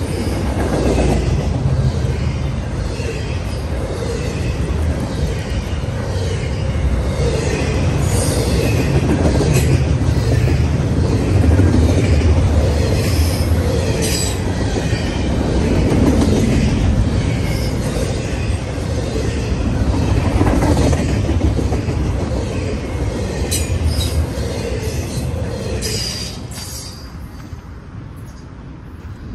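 Double-stack intermodal freight train's container cars rolling past: a steady rumble of steel wheels on rail, with wavering high wheel squeal and occasional sharp clicks. The sound drops away about 26 seconds in as the last car passes.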